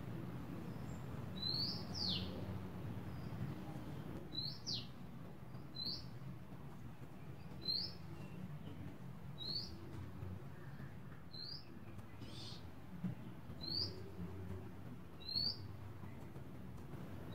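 A small bird chirping repeatedly: a short, high, rising chirp every second or two, a few of them followed by a quick falling note, over a low steady background noise.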